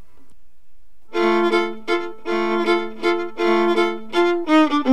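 Playback of a recorded solo melodic part: a repeating figure of sustained pitched notes that comes in about a second in, with a quicker run of notes near the end. Its repeats have been pieced together from one take and crossfaded so they share the same attack.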